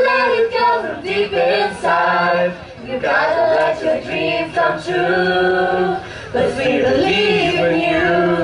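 A group of voices singing an upbeat pop song together, women's voices to the fore with men's beneath, with several long held notes.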